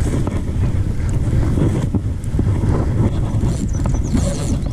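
Wind buffeting the microphone as a steady low rumble, with faint short clicks over it.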